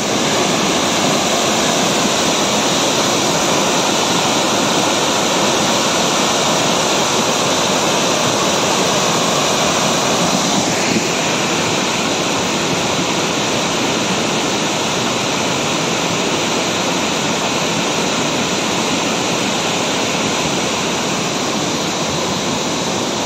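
Muddy flash-flood water rushing down a stream channel: a loud, steady rush of water.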